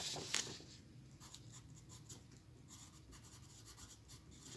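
A yellow wooden pencil writing on paper: faint, short scratching strokes, with a couple of slightly louder taps near the start as the point touches down.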